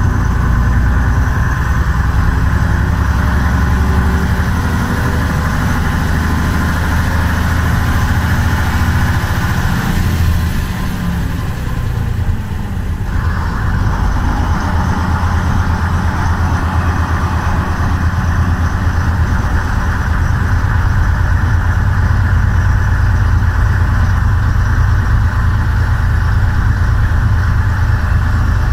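Engine of a vintage bus running under way, heard from on board. It eases off briefly about a third of the way through, then picks up and pulls steadily again.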